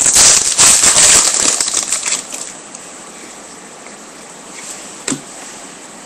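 Trading-card pack wrapper being torn open and crinkled, dense and loud for about the first two seconds, then dying away. A single light tap about five seconds in.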